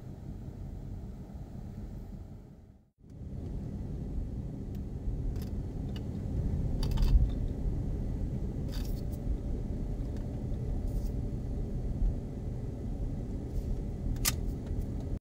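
Car cabin noise: a steady low rumble of engine and tyres, heard while stopped at a light and then while driving at street speed. It drops out briefly about three seconds in, and a few faint clicks and rattles come later.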